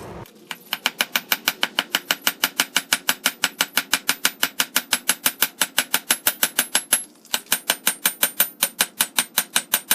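Hammer striking hot rebar on an anvil in quick, even blows, about five a second, each with a bright metallic ring. The hammering breaks off briefly about seven seconds in, then resumes.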